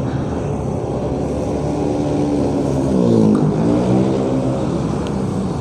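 Motorcycle engine running on the move over a steady hiss of road noise. Its revs fall about two seconds in, then climb again from about three seconds in.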